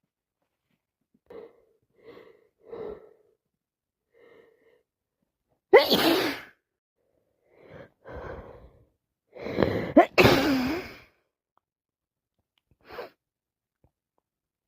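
A person sneezing: a few short catching breaths build up to a loud sneeze about six seconds in, then more breaths and a loud double sneeze around ten seconds in, with a small one near the end.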